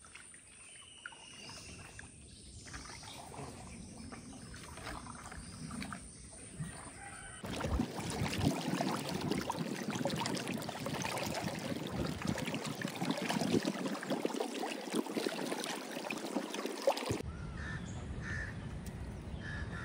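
Crows cawing over quiet outdoor ambience. About seven seconds in, a louder rushing noise starts and runs for about ten seconds before cutting off suddenly.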